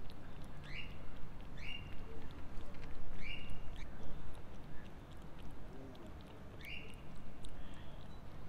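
A cat chewing wet food chunks from a plastic bowl, a run of small wet clicks. Four short bird chirps cut through, each sliding up and then holding briefly.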